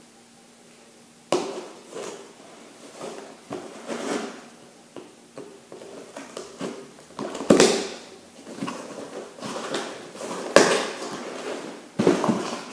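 A knife cutting through packing tape on a cardboard box, with scraping and tearing of the cardboard as the box is opened. It starts after a quiet second and goes on as a run of scrapes and rips; the loudest two come a little past halfway and about two-thirds through.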